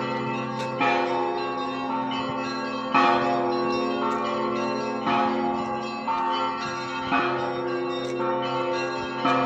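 Church bells ringing: a set of bells with many overlapping tones and a low, sustained hum, freshly struck about every two seconds so that each strike lands on the ringing of the ones before.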